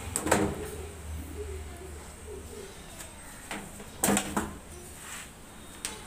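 Hard plastic knocks and clicks from the washing machine's top frame and panel parts being handled, a few separate strikes with the loudest about a third of a second in and about four seconds in.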